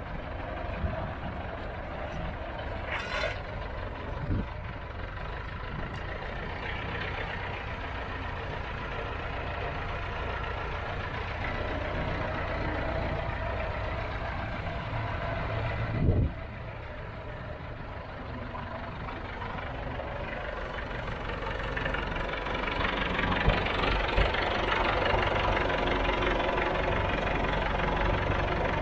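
Tractor engine running steadily, growing louder over the last several seconds.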